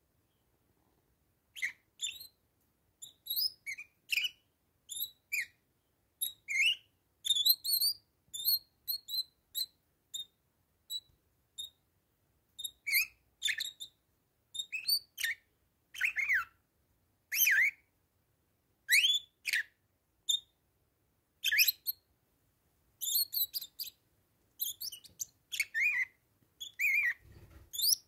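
Bourke's parakeet calls: a run of short, clear whistled chirps, some gliding down in pitch, coming in quick bursts with short pauses, starting about a second and a half in.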